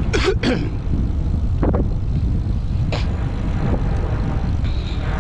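Steady low rumble of wind and road noise on a moving rider's microphone, with a few short sharp sounds in the first half-second and again about two and three seconds in.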